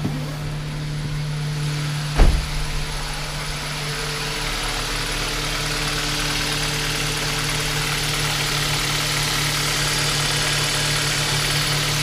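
Kia Ceed 1.6 petrol four-cylinder engine idling steadily, its alternator and accessory drive belt running without squeal after being tensioned and sprayed with belt dressing. A single sharp thump about two seconds in.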